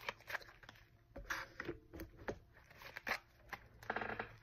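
Tarot cards being shuffled by hand: quiet, irregular clicks and rustles as the cards slide and snap against each other.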